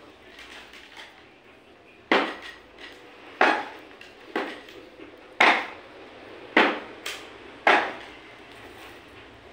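Wooden chair legs knocking down onto a tiled floor as the chair is rocked and tipped with a person standing on it: six sharp knocks about a second apart.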